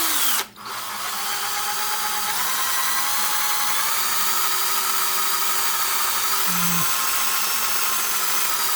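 Electric drill spinning a model car tire on a bolt mandrel while a sanding block grinds down its uneven tread, a steady whir with sanding hiss. The drill gives a brief burst, stops for a moment, then runs steadily from about a second in.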